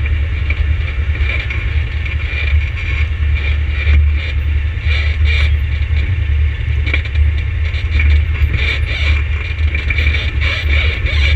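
An ATV engine running steadily with a low hum, with scattered clicks and rattles throughout.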